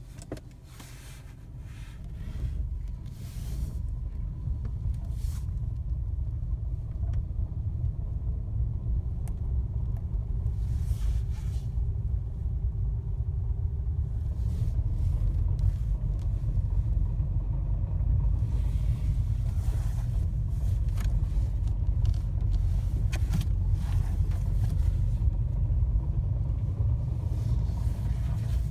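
Fiat Panda running with a steady low rumble that builds over the first few seconds, with scattered clicks and a faint whirring over it: a clicking and whirring noise that the owner puts down to a gearbox problem.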